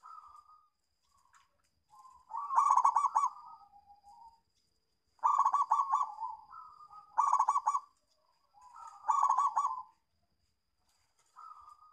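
Zebra dove (perkutut) cooing: four loud, rapid staccato trilled phrases, with softer short coos before, between and after them.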